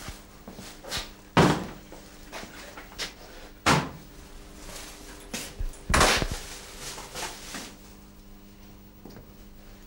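A few separate knocks and thuds of things being handled and set down in a small kitchen, loudest about a second and a half in and again around six seconds in, with a faint steady hum between them.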